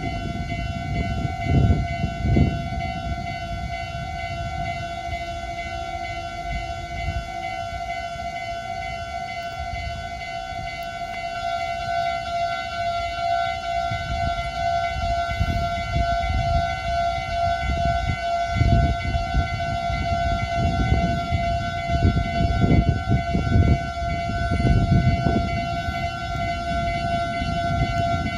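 Japanese level-crossing warning bell ringing without a break, a steady high ringing tone, over the low rumble and irregular knocks of a train running through the crossing.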